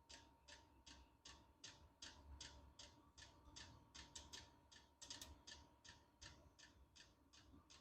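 Faint, regular ticking of a Vevor diesel air heater's fuel dosing pump, about three ticks a second, over a faint steady hum from the heater, which is running but not yet warm.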